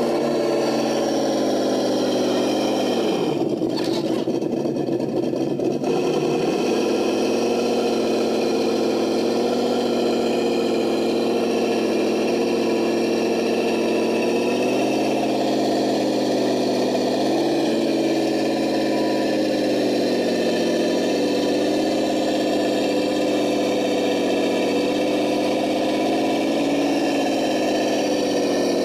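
Simulated truck engine sound from an ESS-One sound module, played through the RC crawler's speaker and running steadily at a low, idle-like pitch. About three seconds in the pitch sags and turns rougher for a few seconds, and later it rises a little now and then as the throttle changes.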